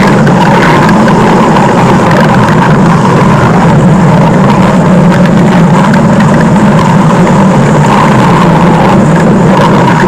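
Stomach-growl sound effect: a loud, continuous low rumble that runs on steadily without a break.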